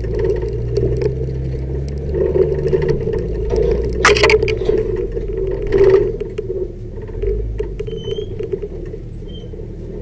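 Low steady rumble of a vehicle moving slowly over a rocky dirt track, with light rattles throughout and louder knocks about four seconds in and again near six seconds.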